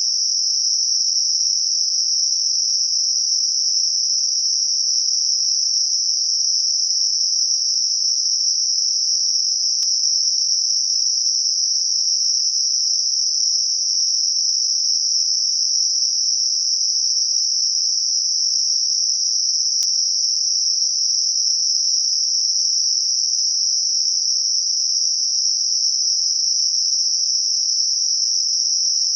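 Synthetic Gaussian narrow-band noise centred on 5.5 kHz, used as a tinnitus masker: a steady, even, high-pitched hiss that never changes in level.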